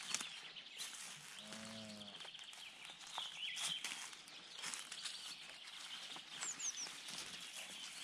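A Highland cow gives a short, soft moo about a second and a half in. Small birds chirp and twitter steadily from the forest, with three quick, high falling whistles late on. A few footsteps crunch on old snow and dry grass.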